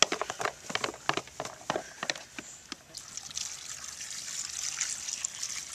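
Potato and carrot chunks dropped into a cast-iron Dutch oven of beef stew: a quick run of knocks and splashes for about two and a half seconds, then a steady hiss of liquid from the pot that grows a little louder.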